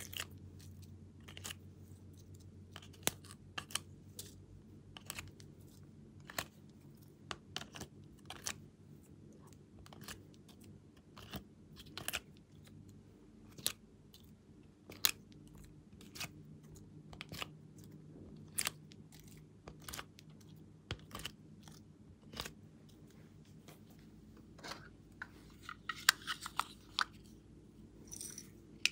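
Irregular sharp clicks and soft taps as coloured heart-shaped pieces are popped out of a plastic mould tray and dropped into a plastic basin of foam beads and glitter, with a brief crinkly rustle near the end.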